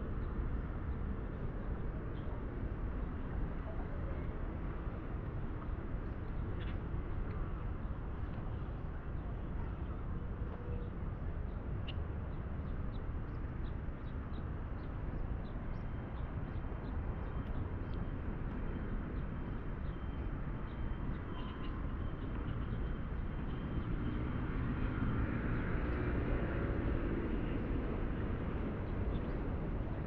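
Outdoor city ambience: a steady low rumble of distant road traffic, with faint, scattered bird chirps. The sound swells louder about three quarters of the way through.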